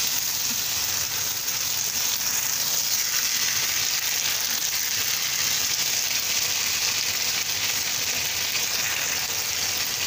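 Diced boiled potatoes sizzling in hot oil in a frying pan, a steady frying hiss.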